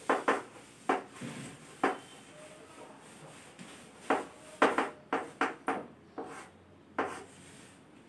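Chalk writing on a chalkboard: a run of short, irregular taps and scrapes as the chalk strikes and drags across the board, with a dense cluster of strokes about four to six seconds in.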